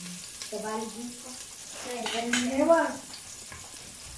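Garlic and onion sizzling in hot oil in an aluminium pressure-cooker pot, stirred with a spatula that scrapes the pot a few times around two seconds in. A man's voice rises and falls over it twice, starting about half a second in and again around two seconds in.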